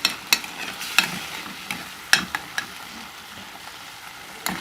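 A spoon stirring a tomato sauce simmering in a pan, over a steady sizzle. Now and then the spoon knocks against the pan with a sharp click.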